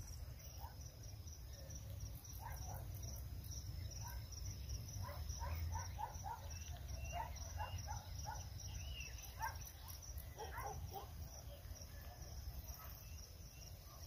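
Crickets chirping: a faint, steady, evenly pulsed high trill over a low rumble. Scattered faint short calls come through in the middle stretch.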